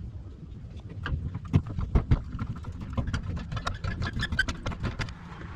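Rapid, irregular metallic clicking and clinking of hand tools and bolts as subframe bolts are run in by hand, with a couple of louder knocks about one and a half and two seconds in.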